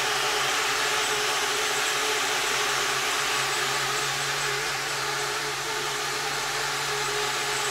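FPV racing quadcopter's brushless motors spinning 3D-printed propellers, a loud steady whirring buzz at an even pitch that stops abruptly at the end.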